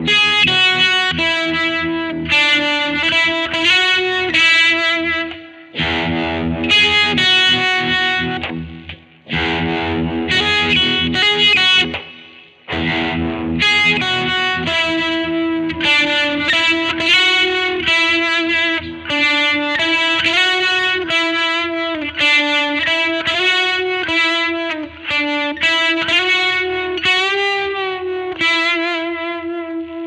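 Squier Vintage Modified Telecaster Thinline electric guitar played through a Peavey amp. Strummed chords ring out every few seconds at first, then a single-note melody line follows with sustained notes that waver near the end.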